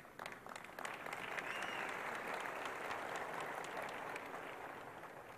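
Audience applauding: the clapping swells over about the first second, holds, then fades away near the end.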